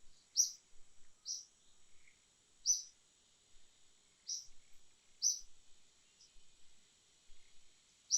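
Short, high bird chirps repeated every second or so, irregularly, over a steady high insect drone.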